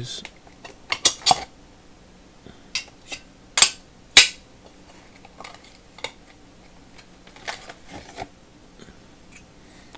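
Small steel parts trays clinking against each other as they are pulled out of a clear plastic clamshell pack and stacked, with the plastic crackling. About a dozen separate clinks come in uneven groups, the loudest a little past four seconds in, with softer ones later.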